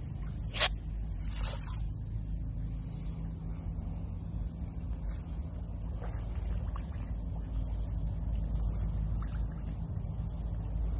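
Steady low mechanical hum, with a sharp click about half a second in and a fainter one about a second later.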